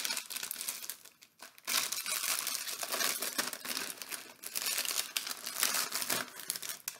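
A crinkly plastic snack bag crackling and rustling as it is handled and opened: a short burst at the start, then near-continuous crinkling from about two seconds in until just before the end.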